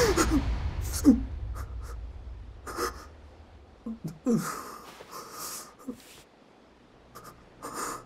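A man breathing hard in short, separate breaths and gasps, as if just woken in fright, while a low rumble fades away over the first few seconds.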